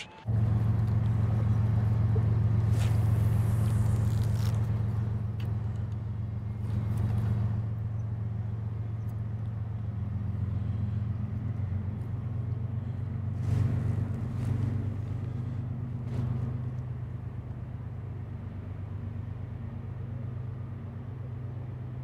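Steady low motor rumble, loudest in the first few seconds and easing off later, with a few brief swishes and clicks over it.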